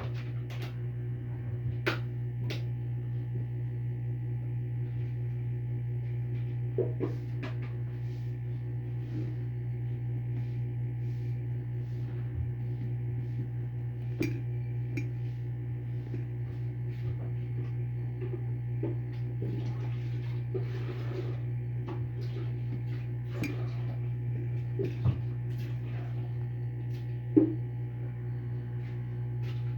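Scattered light clicks and taps of small tools and plastic parts being handled while a Realme C11 phone is taken apart, a few of them sharper, over a steady low hum with sustained tones.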